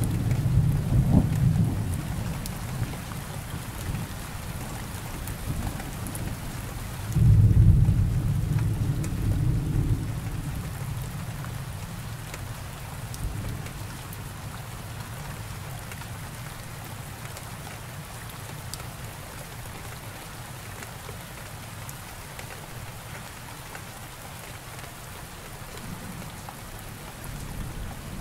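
Thunderstorm: steady rain with deep thunder rumbles. One rumble fades over the first couple of seconds. A louder clap starts sharply about seven seconds in and rolls for about three seconds. After that there is only rain until another rumble builds near the end.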